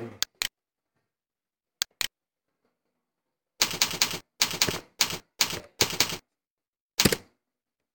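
Computer keyboard typing a short file name: a quick run of keystrokes from about three and a half to six seconds in. It is preceded by a few separate clicks and followed by one more near the end.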